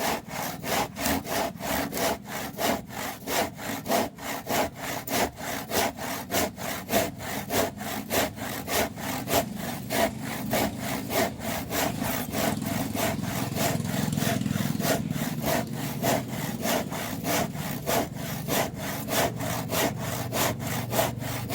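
Kapusi 18-inch crosscut hand saw cutting through soft, weathered scrap wood with rapid, even back-and-forth strokes, a few each second. The saw cuts quickly because the wood is soft.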